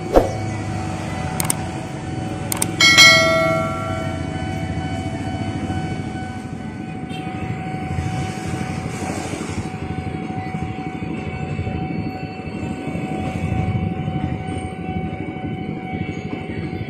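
Level-crossing warning alarm sounding steadily over queued, idling motorcycles and traffic, with a few sharp clicks and a ringing bell-like ding about three seconds in. Near the end an electric commuter train, a JR 205 series EMU, begins to pass over the crossing.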